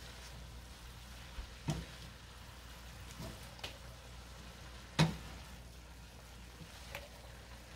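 Vegetables and chow mein noodles frying in a pan with a faint steady hiss as they are tossed with two spatulas, with a few knocks of the spatulas against the pan, the loudest about five seconds in.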